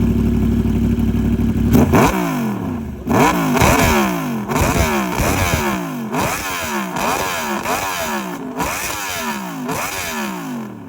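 Yamaha R1's crossplane inline-four motorcycle engine running steadily, then about two seconds in pulling away hard, its pitch sweeping up and dropping again and again as it is taken through the gears, fading as it goes.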